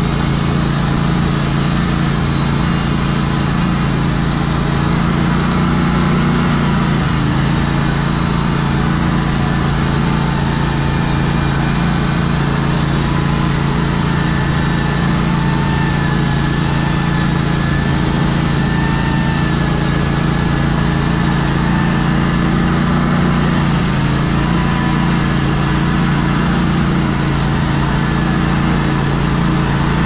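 Woodmizer LT15 Go band sawmill running steadily as its blade cuts along an oak log, the engine's steady hum under load with a faint, wavering whine above it.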